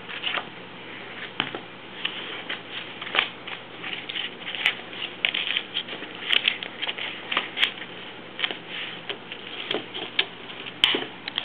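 A Boston terrier mouthing, pawing and dragging a plastic frisbee on carpet: irregular clicks, taps and scrapes of the plastic, busiest in the middle.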